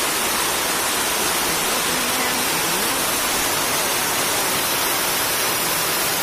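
Very heavy rain pouring onto a corrugated metal roof and the flooded ground, a loud, steady, dense hiss.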